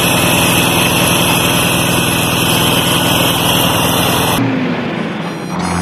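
Small engine of a ride-on lawn mower running steadily. About four seconds in it cuts off abruptly and a country song's instrumental opening begins.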